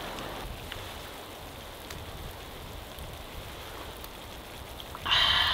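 Steady sizzling hiss of a pan of stew simmering over a charcoal grill, with a few faint clicks. Near the end a person lets out a short exclamation.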